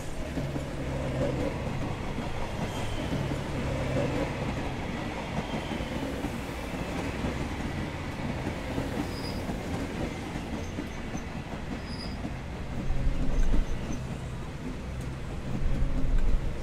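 A train running on rails: a steady rumble with clickety-clack from the wheels and a few faint squeals, swelling louder twice near the end.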